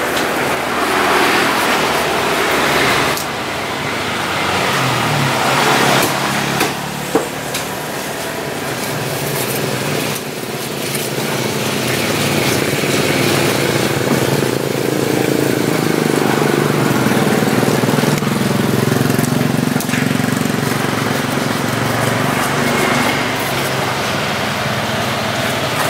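Busy street-market noise led by a motor vehicle engine running close by, its pitch wavering through the second half, with two short knocks about seven seconds in.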